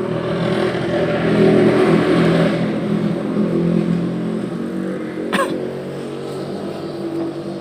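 An engine idling steadily, with a scraping rustle as a fuel filter canister is spun on by hand, and a single sharp metallic clink about five seconds in.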